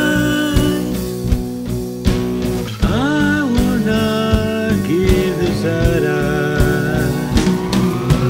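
Rock song playing with guitar, bass and drums but no words. A lead line bends up and down in pitch, and a long rising glide climbs through the last second or so.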